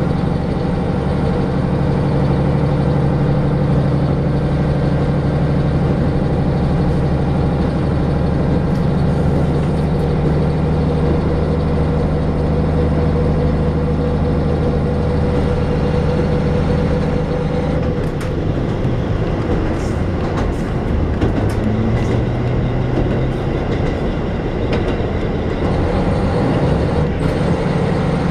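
Diesel railcar heard from inside the car, its engine running under power with a steady drone over the rumble of wheels on the rails. About two-thirds of the way in the engine note drops away, leaving wheel-and-rail noise with a few sharp clicks, and it picks up again near the end.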